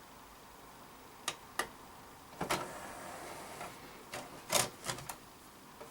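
Sony BDP-S380 Blu-ray player's disc tray mechanism ejecting: two light clicks, then a short stretch of mechanical running about two and a half seconds in, followed by several sharper clicks and knocks.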